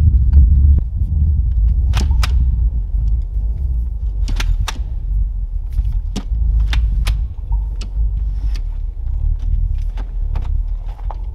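Sharp metal clicks, several in close pairs about a third of a second apart, from the telescoping ladder of a rooftop tent as its sections are worked and snap into place by hand. A steady low rumble sounds underneath.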